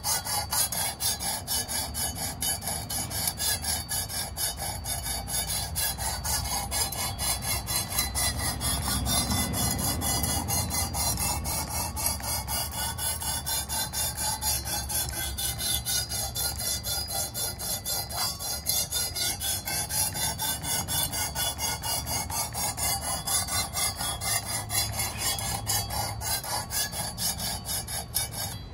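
Abrasive stone of a Work Sharp guided knife sharpener rasping back and forth along a knife edge, about three strokes a second. The stone is the coarse 220 grit, used to grind a divot out of the edge.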